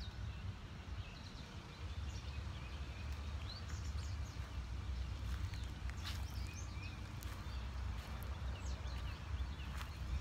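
Outdoor ambience of scattered small-bird chirps over a steady low rumble, with a few short ticks or rustles near the middle.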